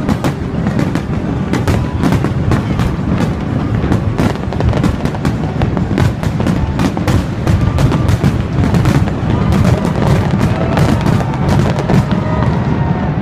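Aerial fireworks display firing a continuous barrage of bangs, several a second, with crackling and a deep rumble beneath.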